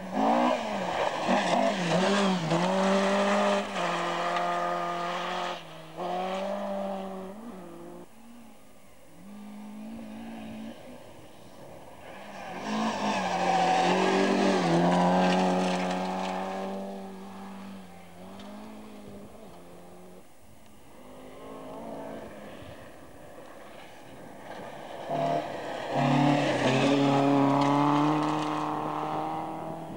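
Three rally cars pass one after another at full throttle on a gravel special stage, each engine revving high and climbing in pitch, with gear changes that drop the pitch in steps, over the noise of tyres on gravel. The passes come about every twelve seconds: near the start, a third of the way through, and near the end.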